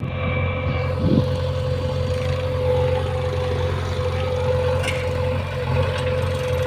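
Heavy-equipment engine running steadily at a constant speed, a low rumble with a steady whine above it.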